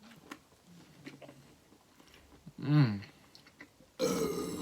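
A person chewing a mouthful of burger, with soft wet clicks of the mouth. About two-thirds of the way in there is a short hummed vocal sound, falling in pitch, and near the end a louder, breathy noise.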